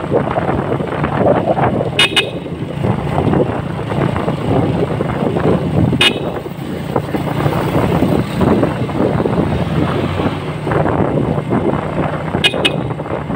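Motor vehicle travelling on a road, a steady engine and road rumble, with short horn toots: two quick ones about two seconds in, one about six seconds in, and two quick ones near the end.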